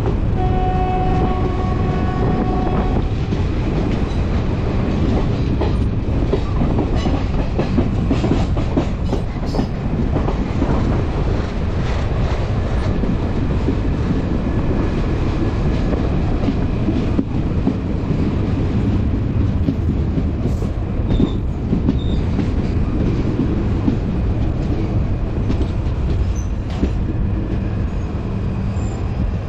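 Express passenger train passing through a station at speed, its wheels and coaches clattering over the rail joints in a loud, steady rush. A horn sounds for the first three seconds.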